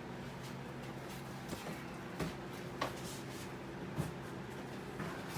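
Scattered light knocks and clicks of a shipping box and its packing being handled, about five over a few seconds, over a steady low hum.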